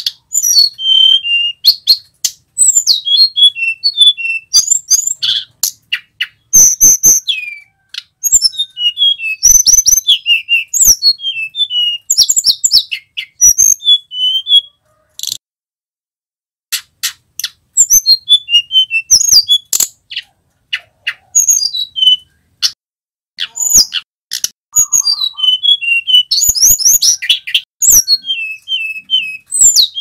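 Male hill blue flycatcher (tledekan gunung) singing: phrases of clear whistled notes that glide up and down, with quick trills, broken by short pauses and one longer gap about halfway through. Sharp clicks fall among the notes.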